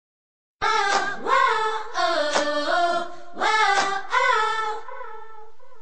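Unaccompanied vocal intro of a pop song: several sung phrases with no drums or bass, starting about half a second in after silence, the last phrase held and fading near the end.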